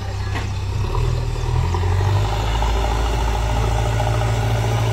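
Diesel engine of a JCB backhoe loader running steadily as the machine works loose soil with its loader bucket. The engine note grows a little louder about a second in, then holds steady.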